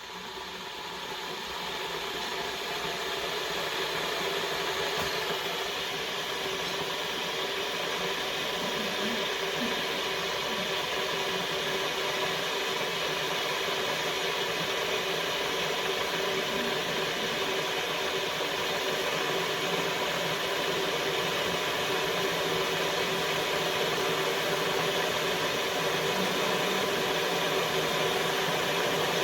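COMFEE' 1500 W stainless steel cordless electric kettle heating water: a steady hiss and rumble that swells over the first few seconds, then holds.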